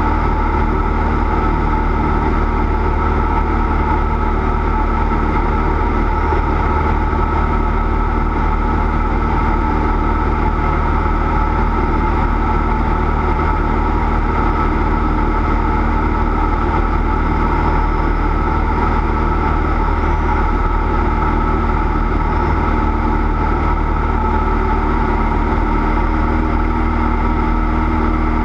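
Cessna 172's piston engine and propeller running at a steady, unchanging speed, a loud continuous drone.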